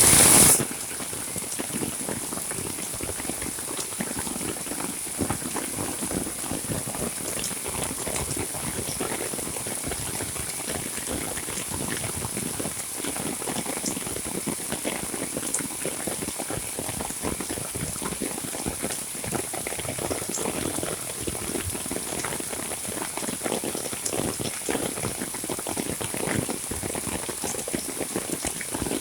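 Heavy monsoon rain falling steadily, a dense patter of many drops, after a brief loud burst at the very start.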